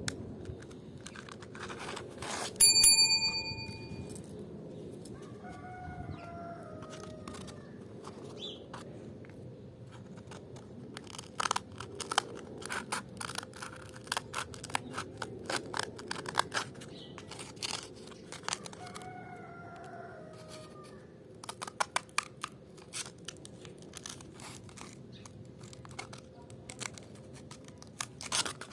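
Scattered clicks, taps and light scraping of hand work, with one loud ringing ping about three seconds in. Twice, a drawn-out crowing call falling in pitch is heard in the background.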